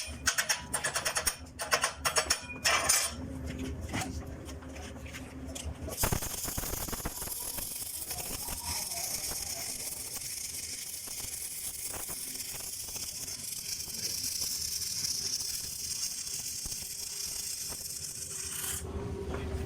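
Stick (shielded metal arc) welding: the electrode scratches and taps against the steel in a run of clicks and scrapes, then the arc strikes about six seconds in and burns with a steady crackling hiss for about thirteen seconds before it is broken off suddenly near the end.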